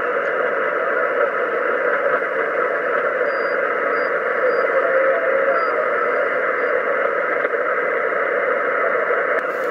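Steady shortwave static hiss from a Kenwood TS-450S HF transceiver's speaker, receiving in upper sideband between voice transmissions, with the sound confined to a narrow voice-radio band.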